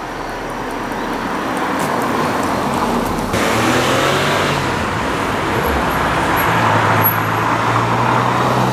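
Volkswagen Polo driving by on an asphalt road: tyre and engine noise growing louder as it approaches. About three seconds in the sound changes abruptly to a steady low engine hum under the road noise, and it cuts off suddenly at the end.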